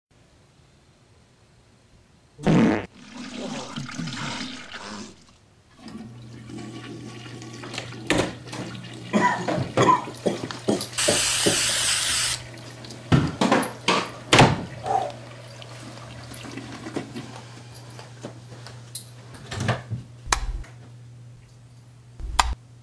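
A toilet flushing, then a string of clicks and knocks, a hiss of aerosol spray lasting about a second, and two low thumps near the end, over a steady low hum.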